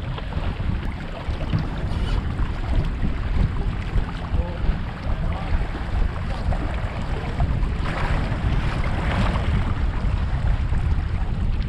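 Wind buffeting the microphone of a camera mounted on a small sailboat under way, over water rushing and slapping along the hull. A stronger hiss of water rises about eight seconds in and lasts a second or so.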